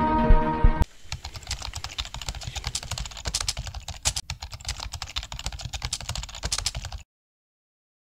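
Intro music ends about a second in, followed by rapid keyboard-typing clicks, a typing sound effect, for about six seconds that cut off suddenly.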